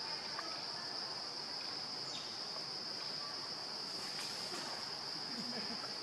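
Steady, high-pitched insect chorus, one unbroken shrill tone that holds without a break.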